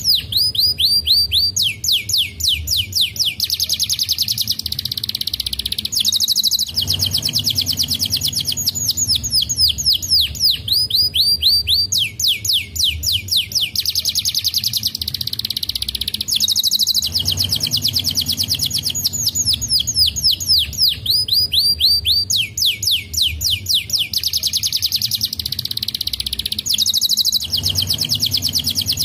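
Domestic canary singing: fast, tightly packed trills of quick downward-sweeping notes, in a phrase that repeats about every five and a half seconds.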